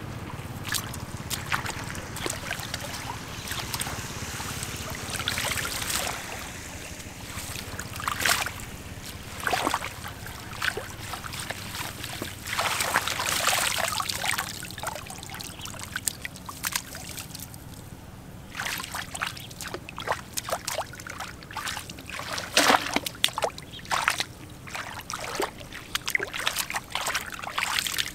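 Shallow muddy water sloshing and splashing as a mesh scoop net is swept through it and bare feet wade, followed by hands groping and slapping in the mud and water, with quick, sharp splashes in the second half.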